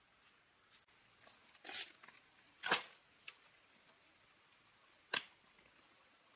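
A few sharp knocks and clacks of stones shifting underfoot on a rocky stream bed, the loudest a little under three seconds in, over a steady high-pitched insect drone.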